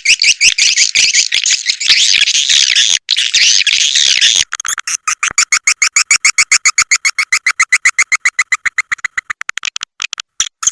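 Swiftlet lure call, as played to draw swiftlets into a nesting house: dense, shrill chattering twitter, then about four and a half seconds in, a fast even run of short chirps, about nine a second, that quickens near the end.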